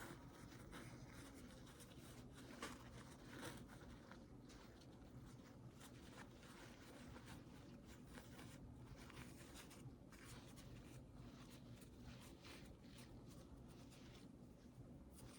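Near silence with faint, irregular rustling and rubbing from a rolled-up tissue being twisted inside a nostril to tickle out a sneeze.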